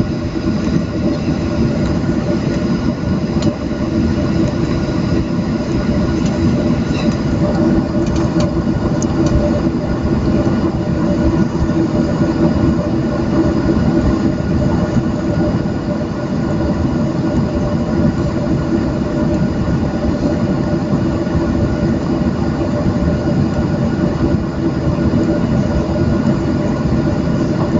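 Cabin noise of a Boeing 737-700 moving along the ground: the steady hum of its CFM56-7B turbofan engines, with several steady whine tones over a dense rumble of the rolling airframe.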